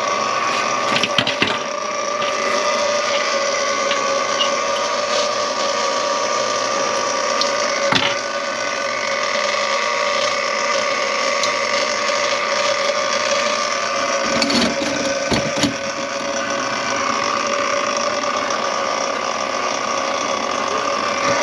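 Motorized drain-cleaning machine running steadily with a steady motor whine while its cable works in a plugged kitchen sink drain. A few knocks and rattles from the cable come about a second in, around the middle and again a little past the middle.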